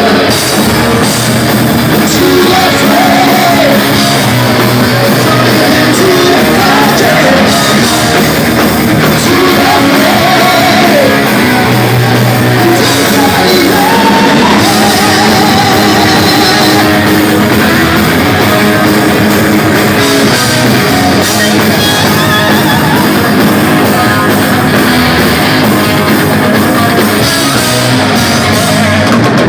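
Heavy metal band playing live: loud electric guitars and drums under a sung vocal line.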